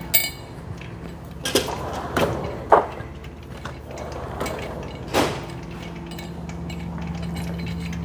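Steel drawer of a Snap-on rolling tool chest being opened and shut, with wrenches clinking as a half-inch wrench is picked out of it: several separate clanks and clicks, the sharpest a little under three seconds in, over a steady low shop hum.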